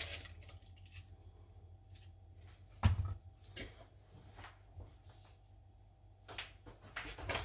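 A whole red onion set down on a cutting board with a single dull thump about three seconds in, followed by a few light knocks and clicks of kitchen handling.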